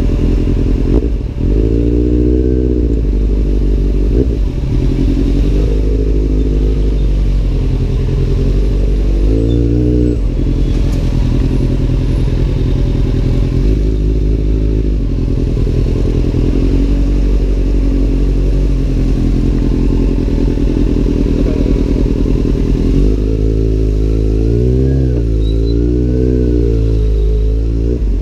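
Kawasaki Z800's inline-four engine running through an Arrow aftermarket exhaust while riding. Its pitch repeatedly rises and falls with throttle and gear changes, with quick revs about two seconds in and around ten seconds in, and a wavering run of revs near the end.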